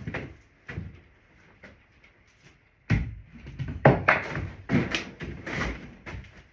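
Irregular knocks and clunks of wooden boards and tools being handled during workbench building, a few at first and then a louder, busier run of knocks about three seconds in.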